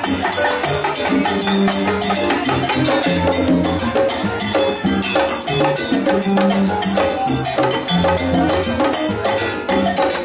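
Live salsa band playing, with bongos struck close by over a moving electric bass line and timbales; a dense, steady run of hand-drum and stick strikes keeps the beat.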